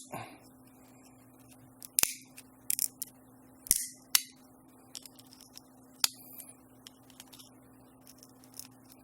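Several sharp clicks and snaps of a Tile Sport Pro tracker's plastic casing as it is pried apart and handled, scattered over the first six seconds, over a steady low hum.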